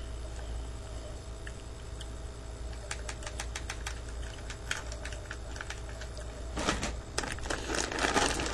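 Someone eating chips: sharp crunchy clicks, then a plastic chip bag crinkling steadily from about six and a half seconds in as it is handled.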